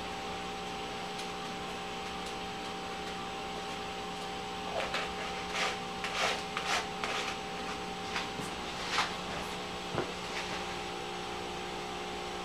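Short scraping and rubbing strokes of hands working foam board and plastic parts, clustered from about five to ten seconds in, over a steady low hum.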